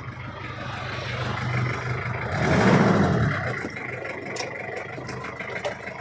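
1992 Daihatsu Taft GT 4x4's diesel engine idling steadily with its typical diesel clatter. It grows briefly louder about two and a half seconds in.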